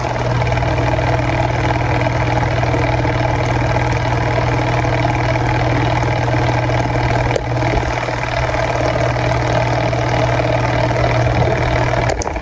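Repurposed air-conditioner AC motor driving a homemade rotary subwoofer's fan rotor at speed: a steady low electrical hum under a rush of air from the spinning blades. The rotor runs off-center, so the whole rig shakes. The sound cuts off just before the end.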